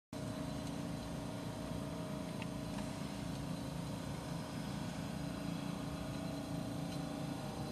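A vehicle engine runs with a steady hum over steady background noise; a low tone in the hum drops out near the end.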